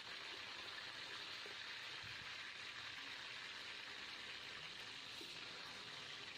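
Dorado (mahi-mahi) steaks frying in hot oil in a pan, a steady sizzle like rain.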